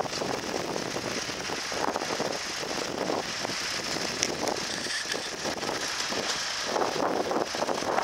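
Ford 2600 tractor's three-cylinder engine running steadily as the tractor pulls along the furrow while ploughing, with wind buffeting the microphone.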